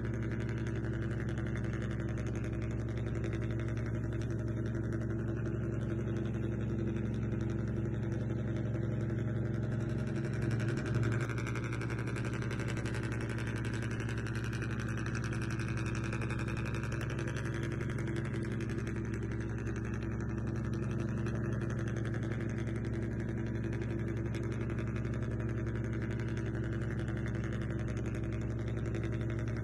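Radio-controlled model boat running with a steady, engine-like drone at an even pitch. A brief low thump comes about ten seconds in.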